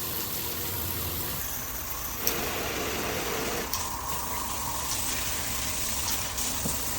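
Water spraying from a filtered LED shower head: a steady rush of water whose tone shifts a few times as the stream changes.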